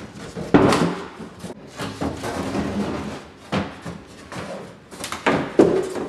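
Thin quarter-inch plywood panels knocking and scraping against a wooden sink base cabinet as they are worked into place for the new floor, with sharp knocks about half a second in, at about three and a half seconds and near the end.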